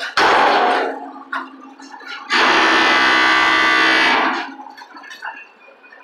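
Two loud bursts of rushing noise: a short one right at the start and a steady one about two seconds long in the middle, each starting and stopping abruptly, with faint scattered knocks from working machinery in between.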